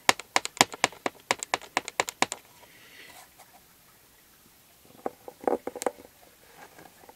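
A quick run of about fifteen sharp taps in the first two seconds or so, then a short cluster of knocks about five seconds in as a hand-held linoleum stamp on a particle-board block is pressed and rocked onto paper.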